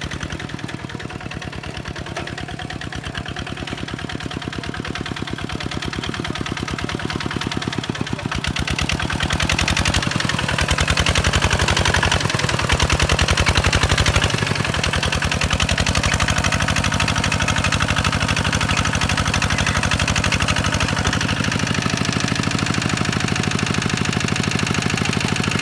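Two-wheel walking tractor's single-cylinder diesel engine running steadily with a rapid, even chug. It grows louder about ten seconds in as it is heard close up.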